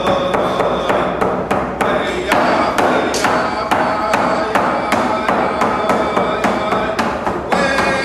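Hand drum beaten in a steady beat, about three strikes a second, with a man's voice singing held notes over it; the singing grows fuller near the end.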